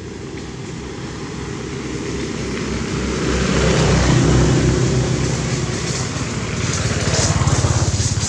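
A motor vehicle engine running, growing louder to about halfway through, easing off, then swelling again near the end, like vehicles passing by.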